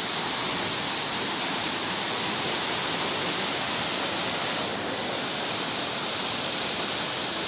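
Muddy floodwater rushing past, a steady hiss that dips slightly about five seconds in.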